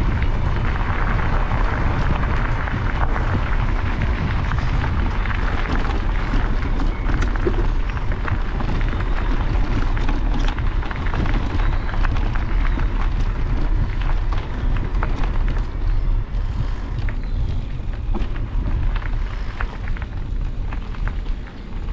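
Wind buffeting the microphone of a riding bicycle, with the tyres rolling over a gravel path; small ticks of loose stones come through more in the second half.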